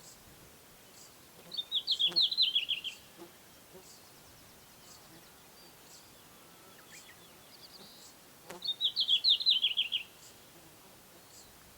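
Red-flanked bluetail singing: two short song phrases about seven seconds apart, each a quick run of notes falling in pitch.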